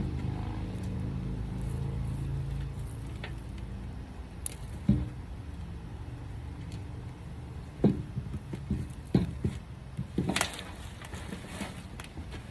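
Potatoes being dug out of garden soil by hand: scattered knocks and scrapes of soil and tubers, loudest about two-thirds of the way in. A low rumble dies away in the first few seconds.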